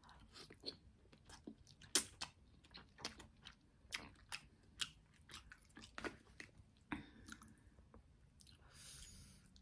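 Close-miked chewing of lo mein noodles: wet mouth clicks and smacks, irregular, a few every second. A short airy rush of breath or slurp comes near the end.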